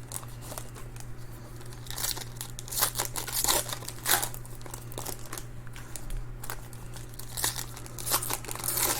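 Foil trading-card pack wrappers being torn open and crinkled in the hands, in irregular crackling bursts. A steady low electrical hum runs underneath.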